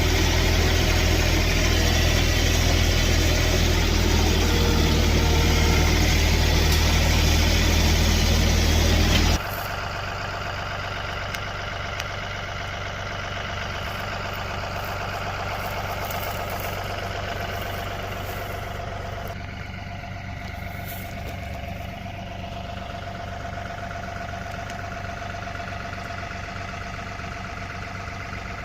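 An engine running steadily with a strong low hum. About nine seconds in it drops abruptly to a quieter, steady engine sound that carries on.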